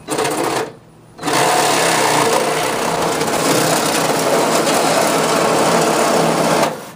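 Reciprocating saw cutting through a rectangular rain-gutter downspout: a short burst, a brief stop, then about five and a half seconds of steady sawing that stops near the end.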